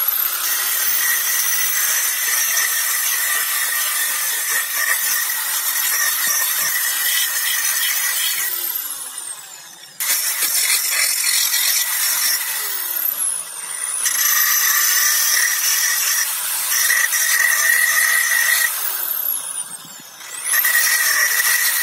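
Electric drill spinning an abrasive grinding disc against a rusty steel knife blade: a loud grinding hiss. The motor's whine falls and rises again several times as the blade is pressed in and eased off.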